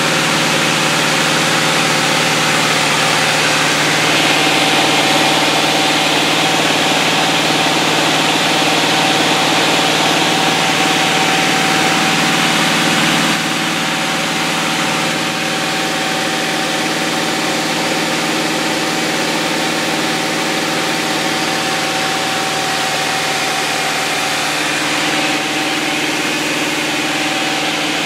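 Van's RV-6 light aircraft's piston engine and propeller droning steadily at cruise power, heard inside the cockpit: several steady tones over a loud rushing hiss. The level drops slightly about halfway through.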